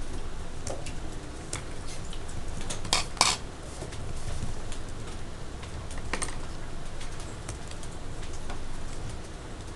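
Room noise in a classroom: a steady low hum with a few sharp clicks or clatters, two close together about three seconds in and another about six seconds in.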